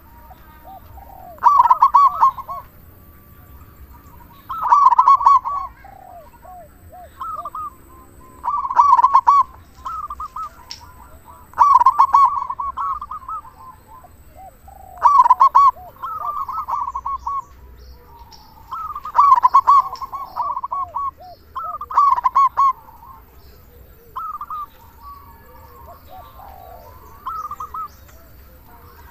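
Male zebra dove (perkutut) singing its rhythmic cooing song: a loud phrase about every three to four seconds, with quieter coos in between.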